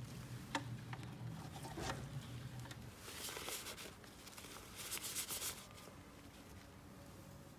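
Hands handling small plastic toy pieces and packaging: two light clicks, then two short bursts of crinkly rustling. A low hum underneath stops about three seconds in.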